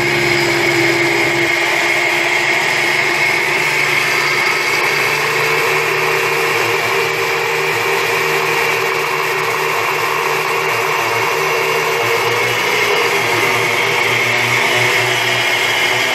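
Oster countertop blender running steadily, grinding dry toasted sesame seeds in its glass jar into tahini paste. Its motor note shifts a little higher about five seconds in.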